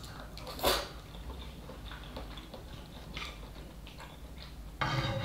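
Eating instant noodle soup from a pot with chopsticks and a wooden ladle: quiet chewing and small clicks of the utensils. There is a brief louder noise just under a second in and a louder half-second noise near the end.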